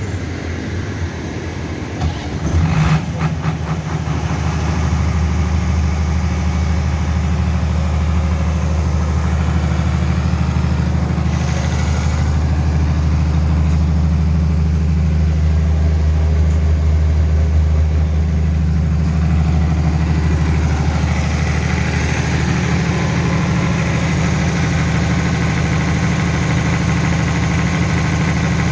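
Mitsubishi-engined diesel generator set in a soundproof canopy, started from its controller. A brief cranking burst about two seconds in as it catches, then a steady deep hum as the engine settles to its governed running speed of about 1,500 rpm.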